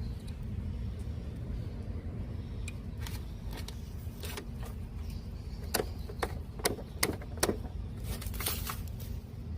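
A series of sharp clicks and taps, the loudest half-dozen bunched together past the middle, over a steady low hum.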